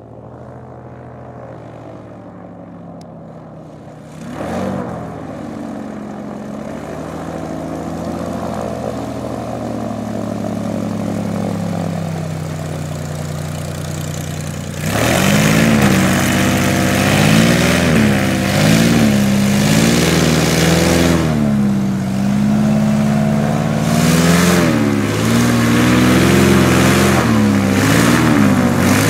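Airboat's GSO-480 supercharged six-cylinder aircraft engine and propeller running, the pitch rising and falling as it revs up and down. It is much louder from about halfway through.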